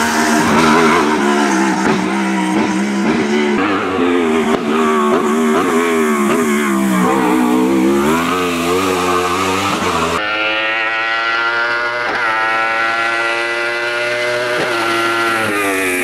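Wolf Thunder E2-SS sports prototype's 1000 cc motorcycle-derived engine at racing revs. Its pitch rises and falls as the car lifts and gets back on the throttle through the bends. About ten seconds in, the sound cuts to another spot where the engine revs up through the gears, the pitch climbing and dropping at each upshift.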